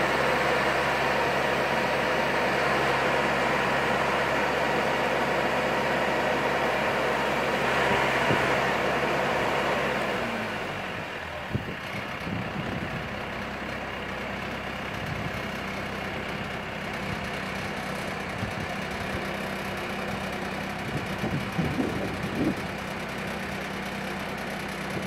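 Engine running steadily with an even hum; about ten seconds in the louder, hissier part of the noise drops away, leaving a quieter, lower engine hum and a few light knocks.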